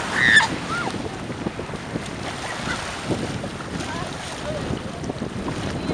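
Wind buffeting the microphone over small waves washing onto the beach. A brief high cry stands out about half a second in, with a few faint similar cries later.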